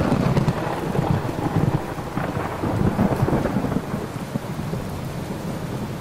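Thunder over steady rain: a loud clap right at the start, then deep rolling rumbles that swell several times during the first three seconds and slowly ease off.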